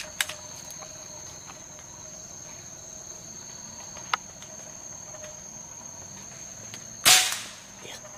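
Insects buzzing steadily and high-pitched, with a couple of faint clicks. About seven seconds in, a single sharp crack from a PCP air rifle shot, fading quickly; it is the loudest sound.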